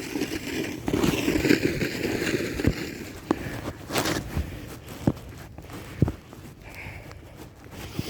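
Snow shovel scraping snow off pavement for the first few seconds, with sharp knocks of the blade and steps scattered through.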